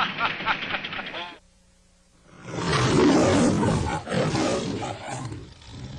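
A man laughs briefly, cut off by a moment of silence. Then the lion of the Metro-Goldwyn-Mayer logo roars: one loud roar, then a weaker second roar that fades away.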